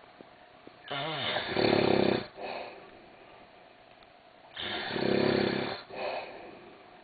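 A sleeping man snoring heavily: two loud snores about three and a half seconds apart. Each is a long, rattling breath followed by a shorter one.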